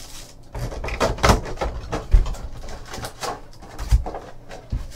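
Clear plastic wrapping crinkling and rustling as it is handled, with a couple of dull knocks on the tabletop about two and four seconds in as packs and the box are set down.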